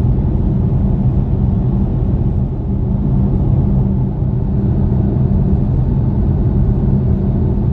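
Steady low rumble of road and tyre noise inside a moving car's cabin.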